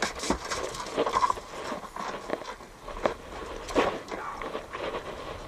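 Triggerfish being handled and dropped into a plastic cooler: a handful of sharp knocks and thumps, the loudest a little under four seconds in.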